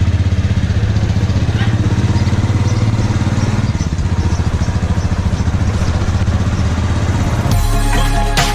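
Motorcycle engine running at a steady idle with an even low beat. Music comes in near the end.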